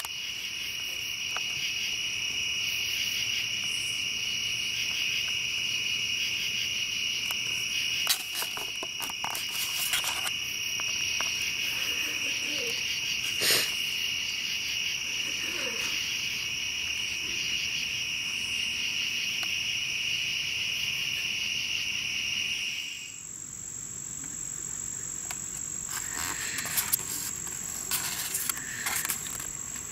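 Night chorus of crickets: a continuous high-pitched trilling that stops abruptly about 23 seconds in. After that only a fainter, thinner high whine remains, with a few scattered clicks and knocks.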